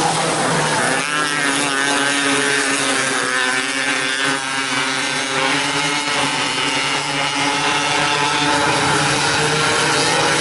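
Several 270cc micro sprint car engines running on a dirt oval, their pitch rising and falling as the cars rev and pass through the turns.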